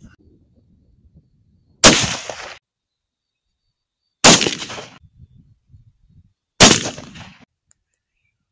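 Three .308 Winchester rifle shots, roughly two and a half seconds apart, each a sharp crack with a short tail dying away after it.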